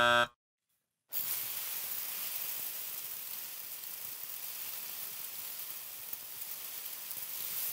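A steady buzzing tone cuts off just after the start. About a second in, a bucketful of dry rice pours onto a man's head and a desk, a steady hiss of falling grains that lasts about six seconds and begins to die away at the end.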